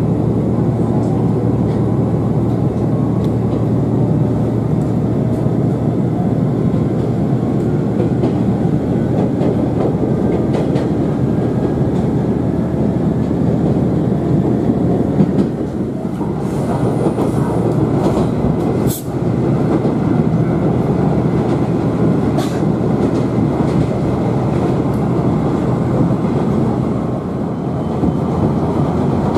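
Moka Railway diesel railcar heard from inside the cabin while under way: a steady, loud engine drone and wheel-on-rail rumble, broken by a few sharp clicks of the wheels over rail joints.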